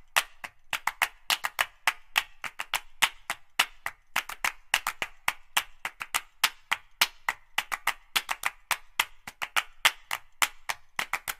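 Rapid, uneven run of sharp, crisp clicks or taps, about five a second.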